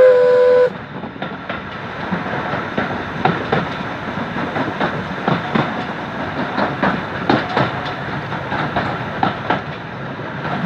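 Steam locomotive No. 85's whistle sounds one steady note that cuts off within the first second. After that comes the train running along, with the wheels clicking over rail joints and the engine's working noise, heard close behind the locomotive.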